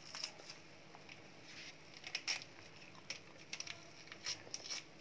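A wire whisk stirring a boiling cocoa-and-sugar syrup in a small saucepan: faint, irregular clicks and scrapes of the whisk against the pan, coming in small clusters.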